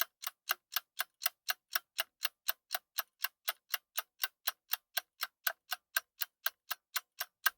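A clock ticking steadily, about four sharp ticks a second.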